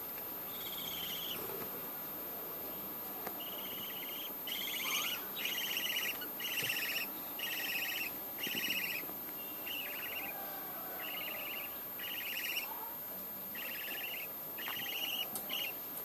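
Young budgerigar calling in a run of repeated raspy, buzzy notes, each about half a second long, loudest from about four to nine seconds in.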